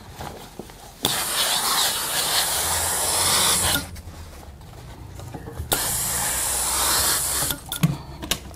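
Steam iron at a pressing table releasing two long bursts of hissing steam, the first about three seconds and the second about two, each starting and stopping abruptly.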